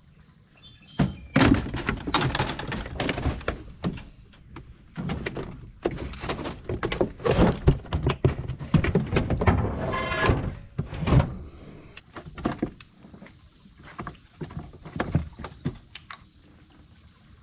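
Repeated thumps, knocks and clatter of fishing gear and a caught fish being handled in a flat-bottomed fishing boat, with a short squeak around the middle.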